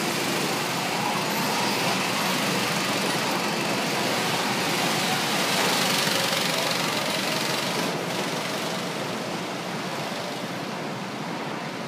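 Small gasoline go-kart engines running as several karts drive off around the track, a steady mechanical drone that fades slightly after about eight seconds.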